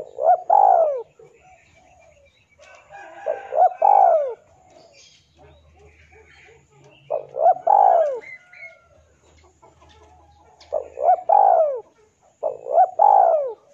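Male spotted dove cooing its challenge call to rival males. It gives five phrases, each of two or three quick, falling coos, about every three and a half seconds, with the last two closer together.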